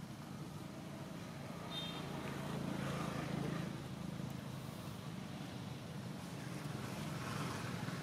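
Steady low rumble of outdoor background noise, swelling slightly about three seconds in, with a brief high chirp near two seconds in.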